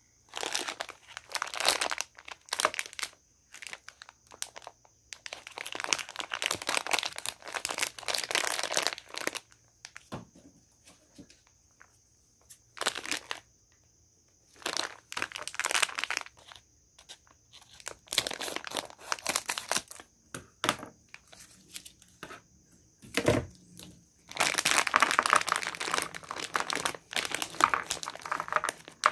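Clear plastic bag of mothballs crinkling as it is handled and opened, in bursts of a second or several with quiet gaps between. There is a single low thump about two-thirds of the way through.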